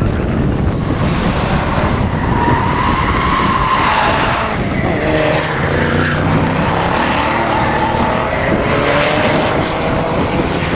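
A V8-swapped BMW E30 Compact and a Mitsubishi Lancer Evolution VIII racing through tight corners, engines revving up and down with tyres squealing.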